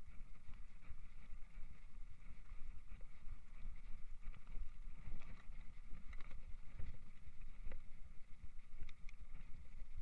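Mountain bike ridden over a bumpy grass track, heard from a camera mounted on the bike: a steady, uneven low rumble of tyres on the ground and the bike shaking, with a few sharp rattling ticks near the end.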